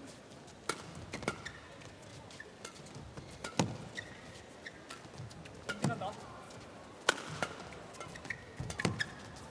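Badminton rackets striking a shuttlecock in a fast doubles rally, a sharp crack every second or so at an uneven pace, with short high squeaks of court shoes as the players change direction.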